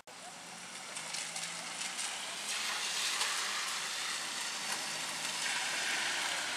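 Steady hiss of rain on wet pavement and leaves, growing louder about two and a half seconds in.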